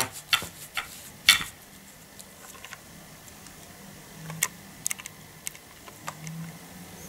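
Crumpled paper kitchen towel crinkling and crackling in the hand, a quick run of sharp crackles in the first second and a half, then a few scattered clicks about halfway through.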